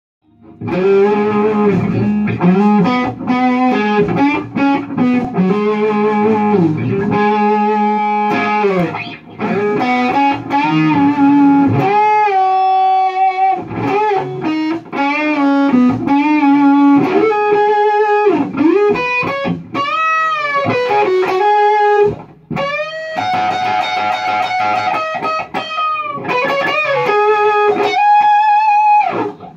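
Distorted electric guitar through a Lone Wolf Audio Left Hand Wrath pedal set for a mid-gain, plexi-style Marshall tone, playing classic-rock riffs. Chord riffs fill about the first twelve seconds, then it moves to a lead line with bent, wavering notes, with a brief pause about three-quarters of the way through.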